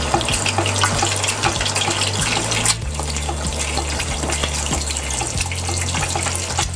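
Egg frying in a generous amount of hot oil in a small non-stick pan, the oil sizzling and crackling steadily as the white's edges turn golden and crisp.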